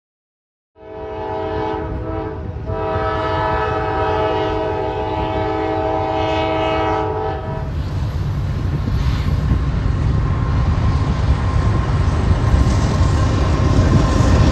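Freight locomotive air horn sounding a chord of several notes, a short blast and then a long one of about five seconds. The horn is followed by the low, steady rumble of the train going by, growing louder.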